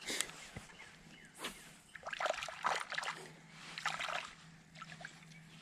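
Water splashing and sloshing in short, irregular bursts, most of them about two to four seconds in.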